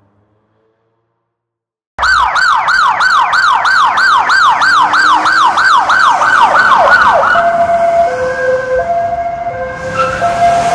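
Police siren starting abruptly out of silence about two seconds in: a fast yelp of falling sweeps, about three a second, then switching to a two-note hi-lo alternation.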